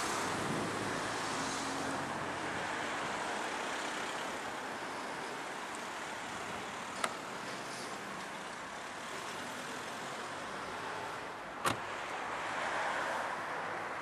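Steady noise of passing road traffic, with two sharp clicks; the second and louder one, about twelve seconds in, is a car door shutting.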